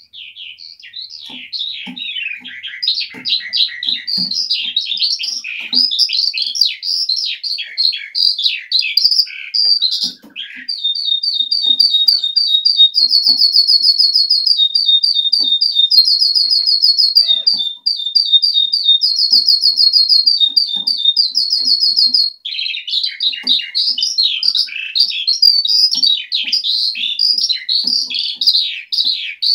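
Eurasian skylark singing a long, unbroken song: fast, varied warbling notes, giving way about ten seconds in to a stretch of rapid, evenly repeated trills, then back to varied warbling for the last seven seconds or so.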